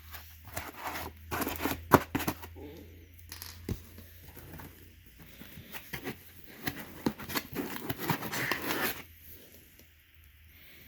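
Packaging and parts being handled while a 3D printer kit is unpacked: irregular rustling, crinkling and small clicks, with one sharp knock about two seconds in and a longer rustle near the end.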